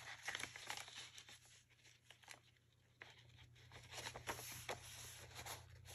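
Faint rustling and light taps of paper cards and pages being handled in a journal, with a near-silent pause about two seconds in.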